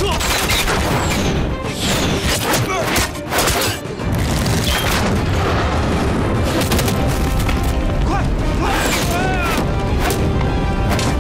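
Film action soundtrack: dramatic music under repeated booms and sharp impacts, with whooshing sweeps among them.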